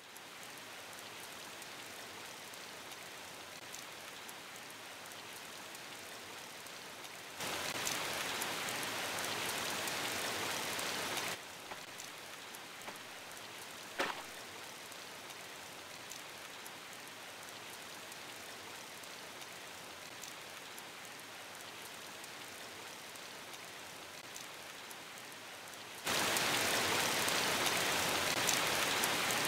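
Steady rain falling, an even hiss that suddenly gets louder about seven seconds in, drops back about four seconds later and gets louder again near the end. A single sharp tap about fourteen seconds in.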